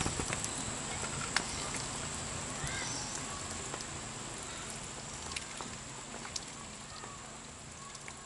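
Scattered drips and light patter of rainwater falling from a wet gazebo and tarp, over a steady high-pitched whine, fading out gradually.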